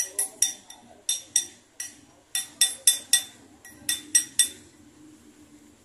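Hammer tapping a gold ring on a steel ring mandrel to reshape it during repair: a run of about sixteen light, ringing metallic strikes, roughly four a second with short pauses, stopping about four and a half seconds in.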